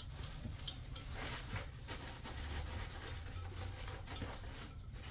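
Plastic cooking bag rustling and crinkling irregularly as it is handled and its contents mixed inside a slow cooker.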